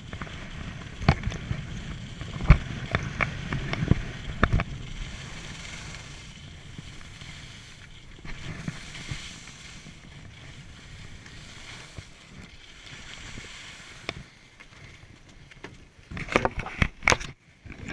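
Skis sliding and scraping over packed snow, with wind rumbling on the camera's microphone. Sharp clicks and knocks come several times between about one and four and a half seconds in, and again in a quick cluster near the end as the skier comes to a stop.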